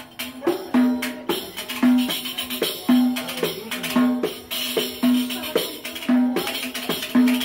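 A hand-played tambourine-type frame drum with jingles, played in a steady rhythm: a deep ringing stroke on the head about once a second, with lighter taps and jingle shakes between.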